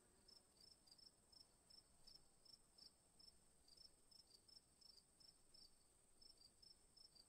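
Near silence, with very faint short high chirps repeating about three times a second over a faint steady high tone.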